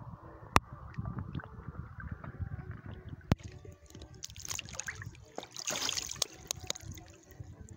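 Small lake waves lapping and gurgling against a phone at the water surface, with a couple of sharp clicks. About five and a half seconds in comes a louder, hissing splash.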